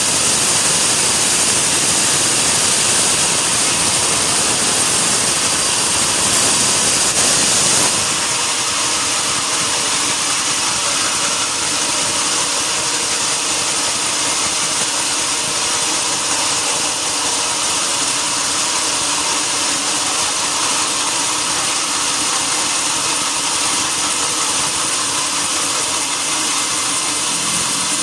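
Sawmill saw running steadily and loudly. About eight seconds in the sound changes: the dense noise eases and a steadier machine hum continues.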